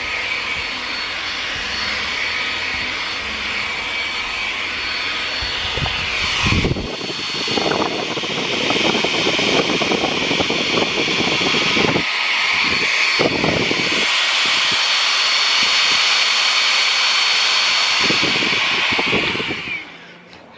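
Wertheim Evolution cordless stick vacuum running with a high, steady whine, with a rougher rushing that comes and goes as the head is pushed over carpet. The motor winds down near the end.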